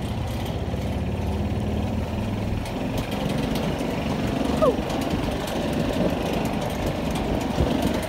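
Golf cart's small engine running with an even low chugging as the cart drives along. About halfway through there is a brief falling squeak.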